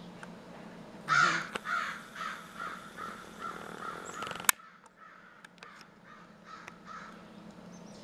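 A corvid calling harshly: loud repeated caws from about a second in. After a sharp click about four and a half seconds in, the calls go on fainter and scattered.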